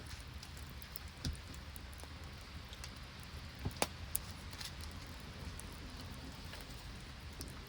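Steady patter of falling rain and sleet with scattered sharp ticks, a few louder clicks bunched together about halfway through.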